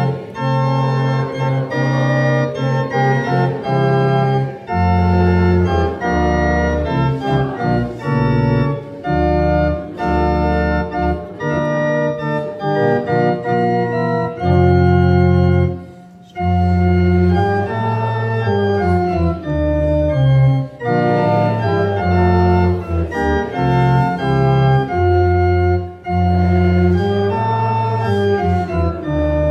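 Organ playing a hymn tune in full sustained chords, changing about once a second, with brief breaks between phrases.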